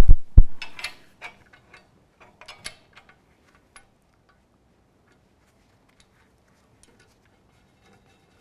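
Two heavy thumps at the start, then scattered light metallic clicks and taps over the next few seconds, from an Eastwood Versa Bend sheet metal brake's steel parts being handled as its bending attachment is changed by hand.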